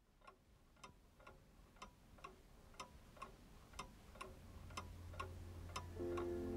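A clock ticking at an even pace, about two ticks a second, fading in and growing louder. Near the end a few held musical notes come in over the ticking.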